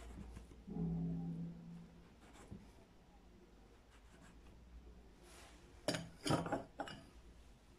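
Drinking glass used as a cutter for rolled dough, knocking against a wooden table a few times in quick succession near the end. A brief low hum sounds about a second in.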